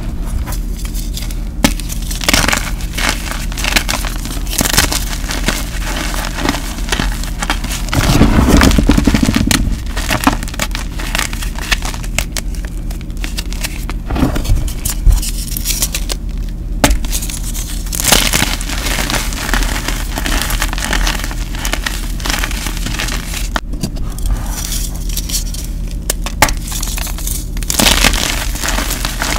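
Hands crushing and squeezing gym chalk powder and chunks: irregular crunching and crumbling crackles, with a longer, louder crunch about eight seconds in.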